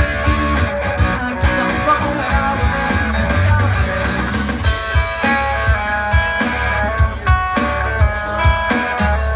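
Live band playing amplified pop-rock: strummed acoustic guitar, keyboard and drum kit, with drums keeping a steady beat.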